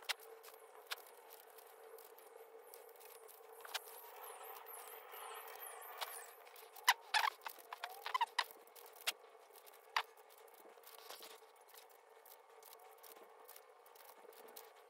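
YJ MGC 5x5 speed cube being turned by hand: its plastic layers clicking and scraping as they turn, with a quick run of louder clicks about halfway through.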